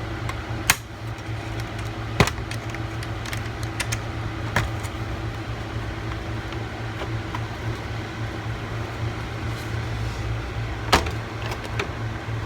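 Sharp plastic clicks as the snap clips of an HP 17 laptop's bottom panel are pried loose with a thin pry tool, a few scattered snaps with the loudest near the start and near the end, over a steady low hum.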